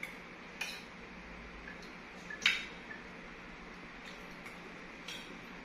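Spoon and fork clinking against a plate while eating: a few short clinks, the loudest about halfway through.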